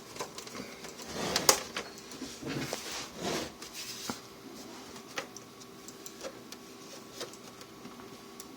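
Plastic monitor casing being handled and shifted: clicks, knocks and scraping, busiest over the first four seconds with a sharp click about a second and a half in, then a few light ticks over a faint steady hum.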